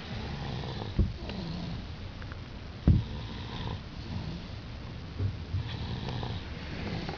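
A sleeping child snoring, slow breaths over the steady low rumble of a car interior. Two sharp thumps, about a second and about three seconds in, stand out as the loudest sounds.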